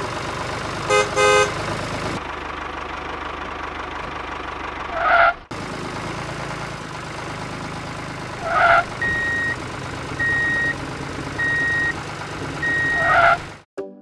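Toy tractor sound effects: a tractor engine running steadily, two short horn toots about a second in, and four evenly spaced reversing beeps in the second half. Three brief, louder sounds also stand out along the way.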